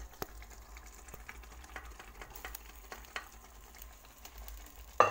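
Wooden spoon stirring green grams into a hot, sizzling tomato-onion sauce in a pan, with scattered light clicks and taps. A single sharp knock near the end.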